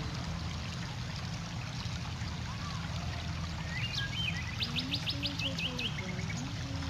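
Birds calling over steady low background noise, with a quick run of about eight repeated high notes about four and a half seconds in.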